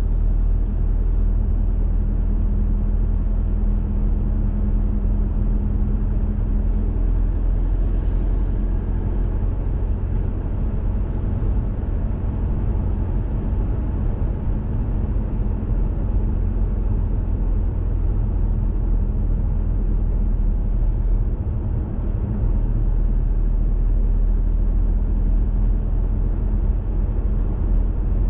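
Car engine and tyre noise heard from inside the cabin while driving: a steady low rumble with a faint hum, and a few brief faint clicks about a second in and around eight seconds in.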